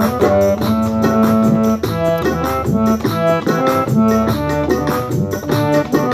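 Harmonium played solo: a quick melody of reedy, overlapping notes.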